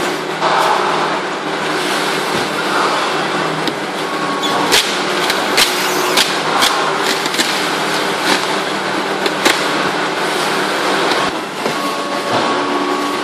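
Machinery of a PS foam food-container production line running with a steady hum and a few steady tones. A run of sharp clicks comes between about five and ten seconds in.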